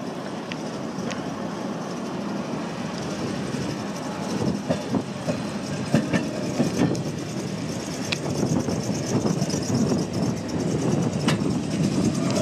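PCC streetcar rolling toward and past on its track: a steady rumble of wheels on rail that grows louder as it nears, with a few sharp clicks along the way.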